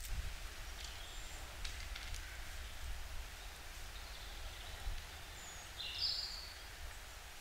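Quiet woodland ambience with a steady low rumble and a few faint rustles, and a short bird call about six seconds in.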